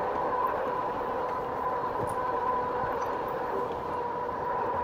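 2018 RadRover electric fat-tyre bike riding at a steady speed: a steady two-note hum over a rushing haze of wind and road noise.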